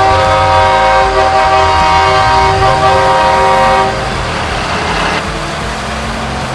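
Truck horn sounding one long, steady chord of several notes for about four seconds over the truck's engine running, followed by a brief hiss.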